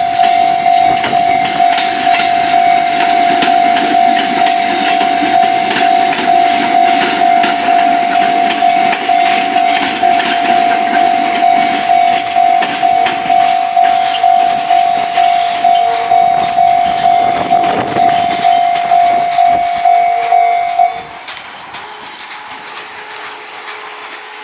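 Japanese railway level-crossing alarm ringing its repeating electronic tone while a train runs past on the Fujikyu line. The alarm cuts off suddenly about three seconds before the end, leaving the quieter sound of the train.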